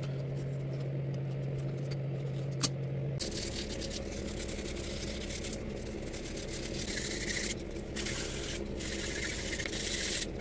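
Hand sanding and rubbing the edges of a glass-cloth-laminated wooden sponson: uneven rubbing and scraping strokes. A steady low hum and a single sharp click come in the first three seconds.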